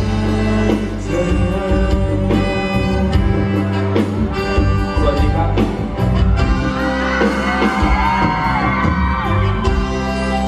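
Live band playing a Thai pop song's instrumental passage between sung lines, with regular drum hits under a steady bass. Partway through, a melody line bends up and down in pitch.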